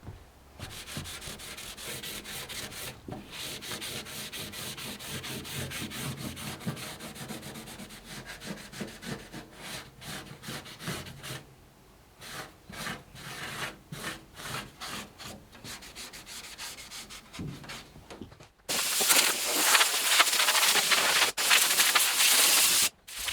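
Scotch-Brite pad scrubbing back and forth over the car's underside panels, scuffing them before sealant, in quick repeated rubbing strokes with a short pause partway through. About three-quarters of the way in, a louder steady hiss takes over.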